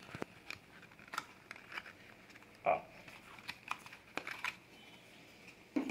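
Small cardboard box being opened by hand: faint scattered clicks and crinkles of the card flap, with a slightly louder short scrape about two and a half seconds in and another near the end.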